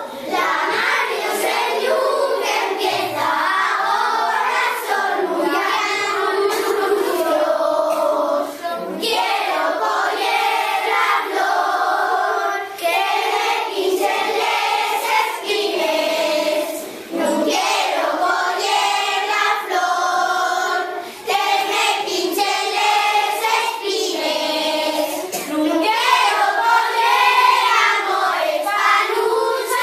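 A class of young children singing together in chorus, an Asturian folk song sung in unison. The singing runs continuously, with brief breaths between phrases.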